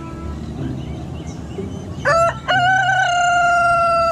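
Rooster crowing: a short rising first note about two seconds in, then one long held note.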